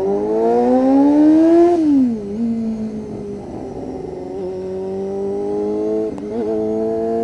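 1992 Honda CBR250RR's 250 cc inline-four, through an aftermarket Musarri exhaust, revving up in a rising whine for nearly two seconds. Its pitch then falls sharply and settles into a steady note, with a brief dip and recovery about six seconds in.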